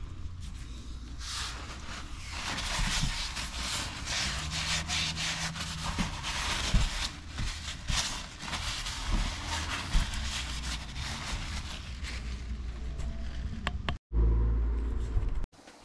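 A cloth rag rubbing and wiping over the car's plastic engine undertray: a rustling scrape in irregular strokes over a steady low hum. Near the end a loud low rumble lasts about a second and a half and cuts off abruptly.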